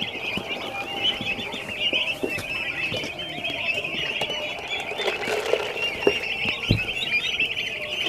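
A brood of young turkey poults peeping continuously, many short, high chirps overlapping.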